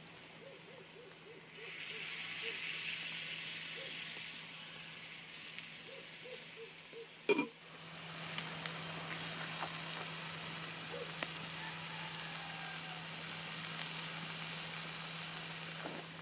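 Sliced onion and celery sizzling in oil in a cast-iron skillet over a wood fire, with small crackles. The sizzle comes in about a second and a half in; a sharp knock comes about seven seconds in, after which the frying hiss is fuller and brighter.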